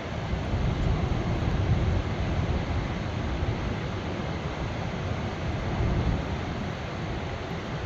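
Augrabies Falls on the Orange River: a steady, heavy rush of falling water, strongest in the low rumble.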